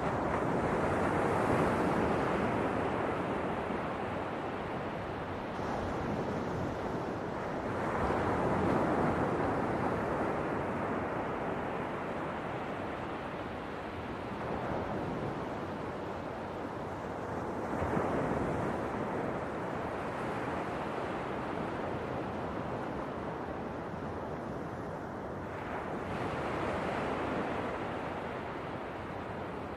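Ocean waves breaking on a shore in a steady wash of surf, swelling up about every six seconds.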